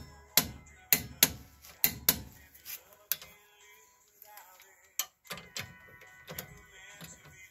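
A click-type torque wrench and socket on a tie rod adjuster nut, giving about eight sharp metallic clicks in the first three seconds as the wrench breaks at its set torque of 41 foot-pounds. After that come lighter clinks of the socket being shifted onto the next nut.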